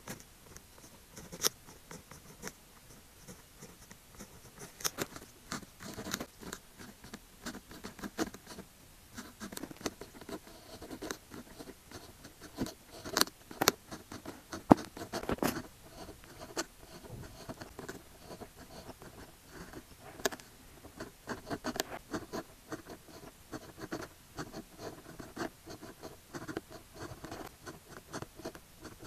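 Pen writing on paper: a run of quick scratchy strokes and small taps of the tip, with a few louder clicks.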